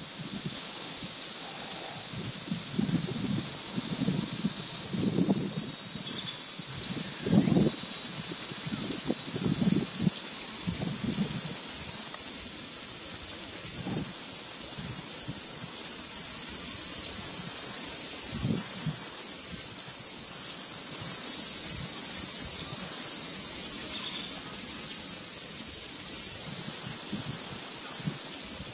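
Loud, steady chorus of insects, a dense high-pitched buzzing drone that does not let up, with faint low rumbles here and there underneath.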